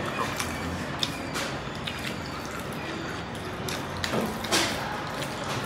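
Wet eating sounds: fingers squishing and mixing rice with pork curry and greens on steel plates, with chewing and lip smacks coming as scattered small clicks, one louder about four and a half seconds in.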